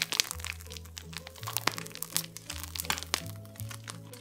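Background music with held low notes, over many quick clicks and crinkles from a plastic piping bag being squeezed as whipped cream is piped.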